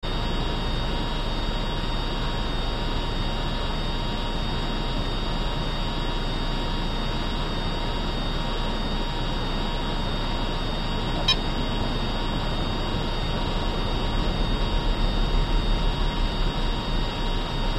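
Steady electrical-sounding hum and hiss with a few constant high tones, a single short click about eleven seconds in, and an uneven low rumble, like wind buffeting the microphone, during the last few seconds.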